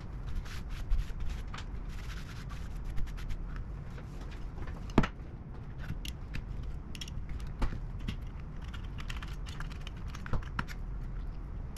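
Irregular light clicks and taps of small hard objects being handled, over a low steady hum, with one sharper click about five seconds in.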